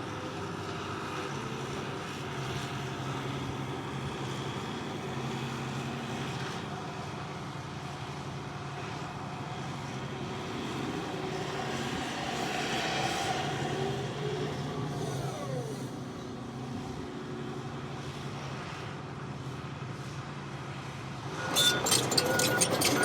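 Hitachi ZX160LC-6N excavator's Isuzu diesel engine running steadily, with whining from the hydraulics that rises and falls around the middle. Near the end, loud metallic clanking starts, with a repeating beep.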